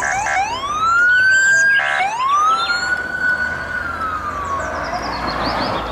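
Police car siren in a slow wail: two long rising-and-falling wails, each opening with a short blast, with road noise from the passing car swelling near the end.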